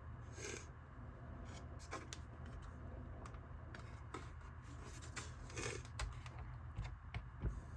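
Scattered small clicks and rubbing from hard plastic RC car body parts being handled and fitted, over a low steady hum.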